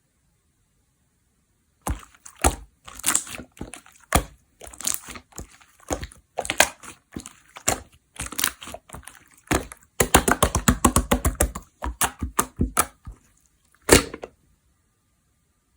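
Slime being squeezed and pressed by hand, giving irregular crackling pops and clicks, with a quick run of many pops about ten seconds in and one last loud pop near the end.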